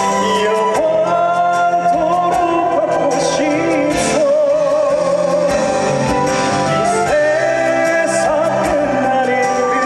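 A trot song performed live: a singer sings a sustained melody with vibrato over instrumental accompaniment.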